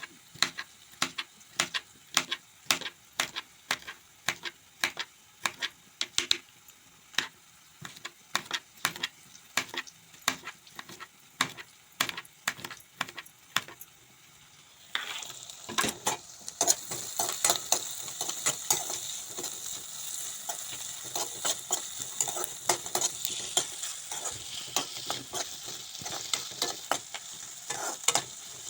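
Rhythmic hand knocking, about two sharp strikes a second, as food is prepared. About halfway in, ingredients go into hot oil in a kadhai and start a loud sizzle that keeps frying steadily, with a spoon knocking against the pan.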